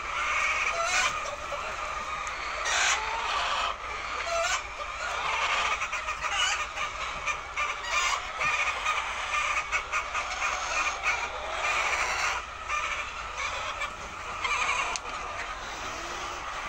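A flock of laying hens clucking and calling, many birds at once, in a continuous overlapping chatter with louder clucks and squawks scattered through it.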